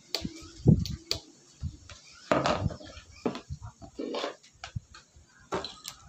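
Handling noise: a scattering of short clicks and light knocks, with a couple of brief rustles, as wires and a test light are moved about and set down on a tabletop.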